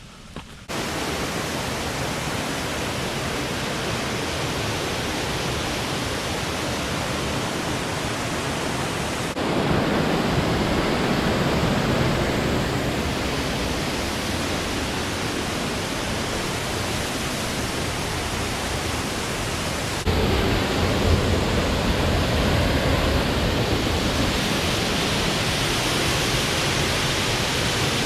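Waterfall, with a steady rush of falling water. It comes in just under a second in and jumps louder twice, about nine and twenty seconds in.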